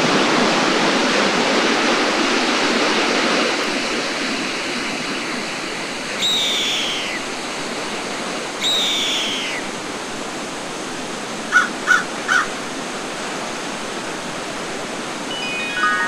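Steady rush of falling water from a waterfall. A bird gives two descending whistled calls a couple of seconds apart, then three short notes.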